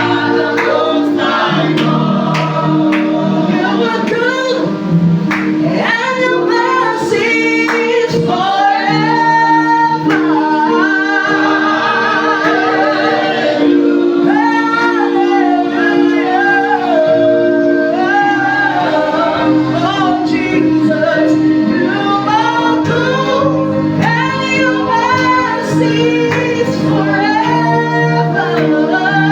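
Gospel praise singing by a worship team, voices over a steady sustained keyboard-like accompaniment.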